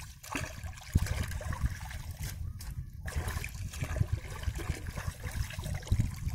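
Shallow muddy water sloshing and trickling as a person's hands and legs move through it, groping along the bottom, with a couple of sharper splashes.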